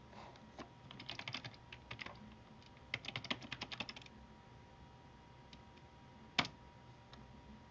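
Typing on a computer keyboard: short runs of quick key clicks as a login email and password are entered, then a pause and one sharper click about six and a half seconds in.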